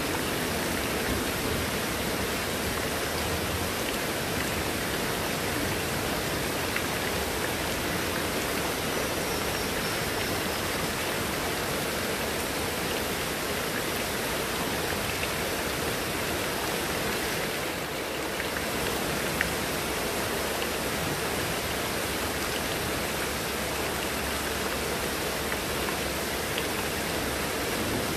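Heavy rain falling steadily, with water pouring off a roof edge and splashing onto wet surfaces.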